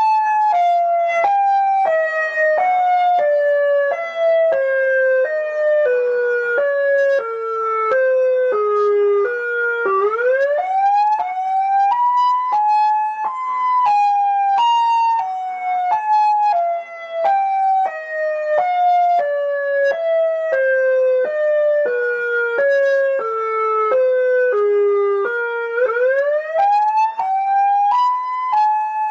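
Emergency alert system alarm: a pitched tone stepping down in short notes over about ten seconds, then gliding back up and stepping down again, with another upward glide near the end.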